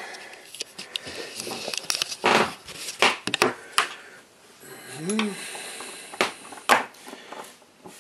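Airsoft gearbox parts (the metal cylinder and piston assembly) being picked up and handled on a workbench: a series of irregular sharp clicks and light clatters, metal and plastic knocking together.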